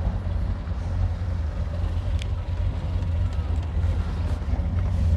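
Boat engine idling with a steady low rumble, and a faint click about two seconds in.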